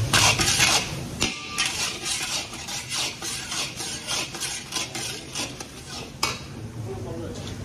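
Long metal spatula scraping and stirring around a large iron kadai in quick repeated strokes, turning mustard seed, dals and turmeric in hot oil, with a light sizzle underneath. The strokes stop with a last scrape about six seconds in.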